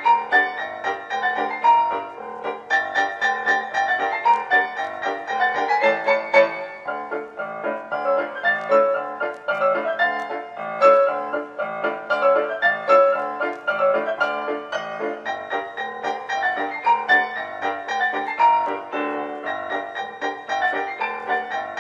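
Background piano music: a steady, unbroken run of notes.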